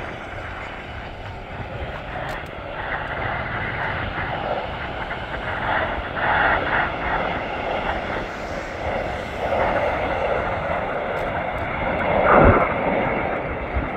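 An airplane's engine noise, swelling and fading as it passes. About twelve seconds in there is a brief loud thump.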